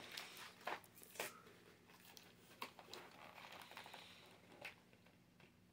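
Faint rustling and scattered light clicks of a cardboard gift box being handled and opened.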